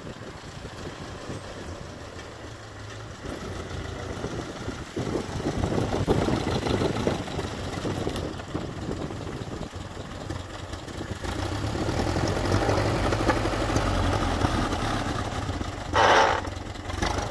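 A homemade tractor's Ford Model A four-cylinder engine running as the tractor drives along, getting louder as it comes close and passes. A short, loud burst of sound stands out about a second before the end.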